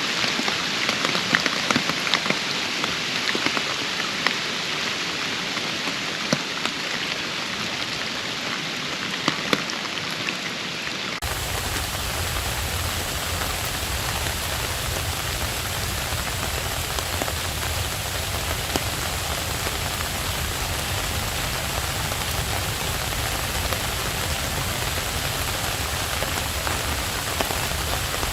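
Steady rain falling, with scattered sharp ticks over the hiss at first. About eleven seconds in, the sound cuts abruptly to a denser, fuller rain with a low rumble underneath, as at a splice between two recordings.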